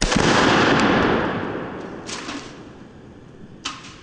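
A 9mm pistol shot from a Glock 19 fitted with a Radian Ramjet barrel and Afterburner compensator, at once followed by a spray paint can bursting: a loud whoosh of escaping paint and propellant that fades over about two seconds. Two shorter sharp sounds follow, one about two seconds in and one near the end.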